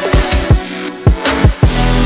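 Electronic dance music with heavy kick-drum hits building to a drop, where a deep, steady bass comes in near the end.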